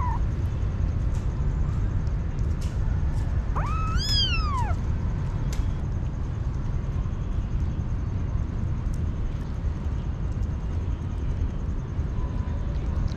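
A kitten meows once, a clear call about four seconds in that rises and then falls in pitch, after a short one right at the start. A steady low rumble and a few faint clicks run underneath.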